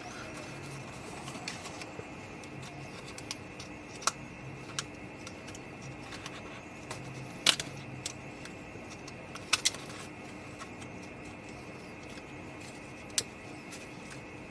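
Card stock and small pieces being handled and pressed together on a craft table: a few sharp taps and clicks, the loudest about halfway through and a quick pair soon after, over a steady faint hum.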